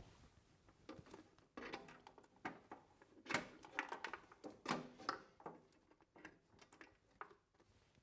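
Faint, irregular clicks and scuffs of electrode cable connectors being pulled off the pins on top of an electrode steam humidifier's plastic steam cylinder, with the cables rustling.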